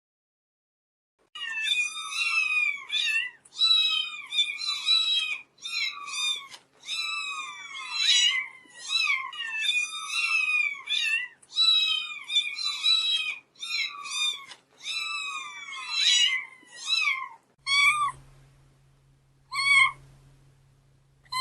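Cat meowing, a rapid run of short, high-pitched meows one after another. Near the end a low hum comes in and a few single meows follow.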